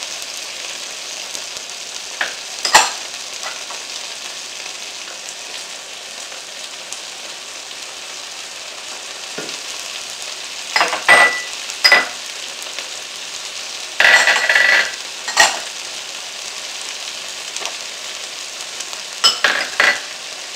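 Tempeh, tomato, onion and garlic sizzling steadily in hot oil in a nonstick frying pan. Short bursts of a spatula stirring and scraping through the pan come several times.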